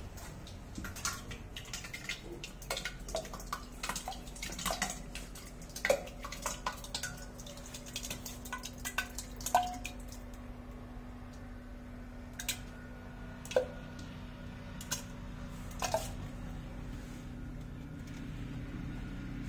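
Thick curd dripping and plopping as it is scooped and scraped by hand from an aluminium pot into a clay pot, with small knocks of metal against clay. The plops come thickly for about ten seconds, then only now and then, over a faint steady hum.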